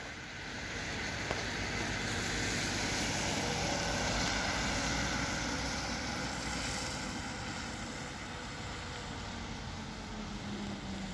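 A van driving past on a wet road: tyre hiss and engine noise swell to their loudest about four seconds in, then fade as it drives away.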